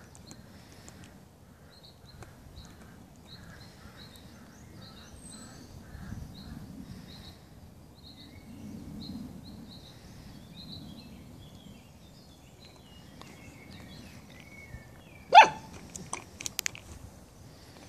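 One short, sharp yip from a Bernese Mountain Dog puppy about fifteen seconds in, followed by a few light clicks. Faint repeated bird chirps run in the background.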